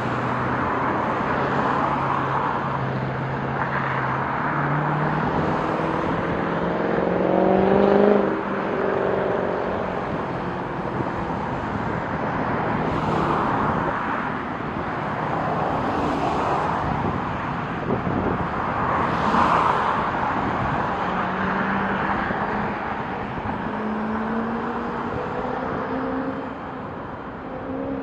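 Steady outdoor traffic rumble, with vehicles passing close by every few seconds. An engine note rises in pitch from about 4 s to 8 s, the loudest moment, and a similar rising note comes again near the end.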